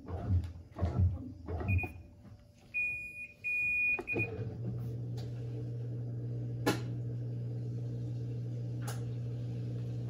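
Panasonic NA-F140B6 top-load washing machine: rhythmic churning of the wash until about two seconds in, then its control panel beeps three times, the last two longer, and after a click a motor starts up and runs with a steady low hum.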